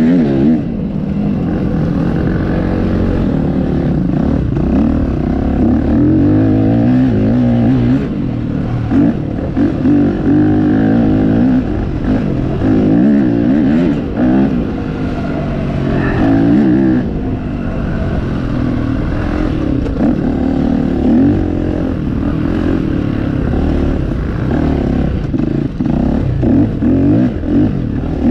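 Off-road motorcycle engine running hard as it is ridden, its pitch rising and falling every second or two with a few brief throttle chops.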